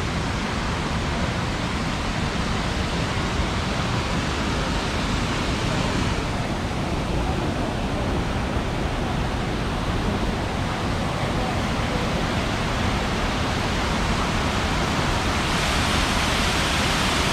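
Steady, loud rush of a man-made waterfall pouring down into its basin.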